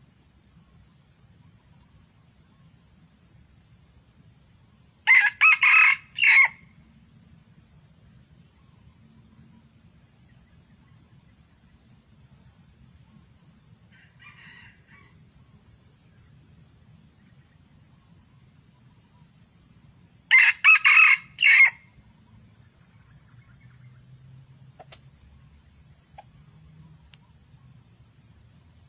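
Junglefowl crowing twice, each a short crow broken into three or four quick parts, about fifteen seconds apart. A steady high-pitched drone of insects runs underneath, with a faint call about halfway between the two crows.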